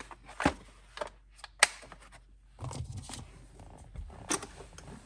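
Hand-handling noises from working on the truck: rustling with scattered clicks and knocks, and two sharp clicks, one about a second and a half in and one just past four seconds.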